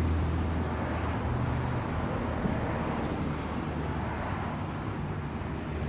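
Traffic noise: a motor vehicle's engine hum that fades over the first second or so, leaving steady road noise.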